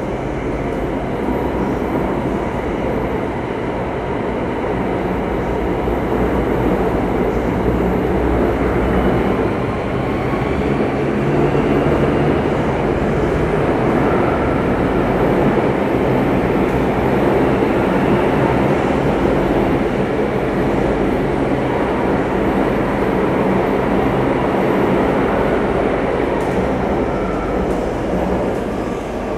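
Interior of a Singapore MRT Circle Line train running through a tunnel: a steady rumble of wheels on rail and running gear, swelling a little midway and easing slightly near the end.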